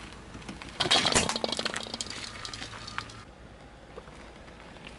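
Car tyre rolling over and crushing a bead-filled soft toy ball on pavement: a sudden burst of crunching and crackling about a second in, with sharp clicks of plastic beads, fading over the next second or so.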